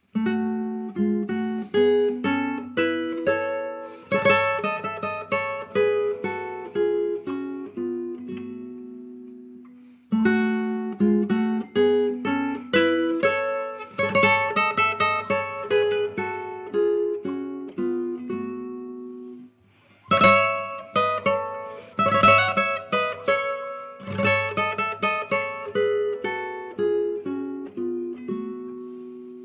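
Music on a plucked string instrument, an acoustic guitar-like sound picking a melody over a low bass pattern. The same phrase of about ten seconds is played three times, each restarting after a brief dip.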